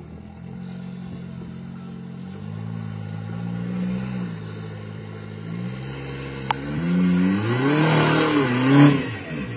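Rock crawler's engine revving up and down in short pulls as it works up a rock obstacle trying to gain traction, then revving hard near the end, its loudest moment, with a rush of noise.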